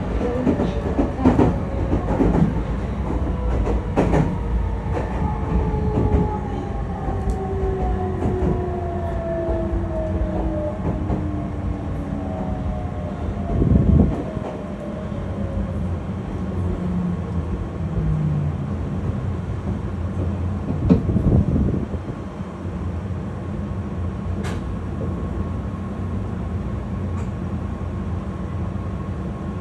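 Interior of a Meitetsu electric commuter train running, with wheels clicking over rail joints. The motor whine slowly falls in pitch as the train slows for the next station.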